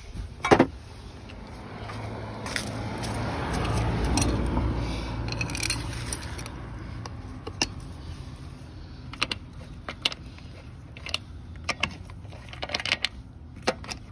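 Lug nuts being unscrewed from a car wheel with a hand socket wrench: a sharp metal clack about half a second in, then scattered clicks and clinks of metal on metal. A low rush of noise swells and fades between about two and six seconds in.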